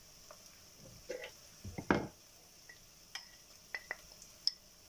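A few light clicks and clinks of kitchen utensils at a cooking pot, with one louder knock about two seconds in.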